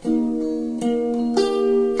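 Flight Pathfinder electric ukulele with steel strings, played through a small Nux amplifier: a chord struck at the start, then new chords about a second in and again about half a second later, each ringing on.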